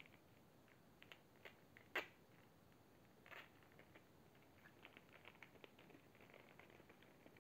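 Faint crinkling and crackling of a thin clear plastic food wrapper being handled and pulled open by fingers, in scattered small clicks, with one sharper crackle about two seconds in.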